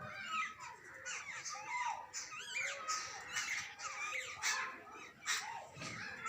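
Several jungle babblers calling at once: a continuous jumble of short squeaky calls that bend up and down in pitch, mixed with harsh, sharp notes.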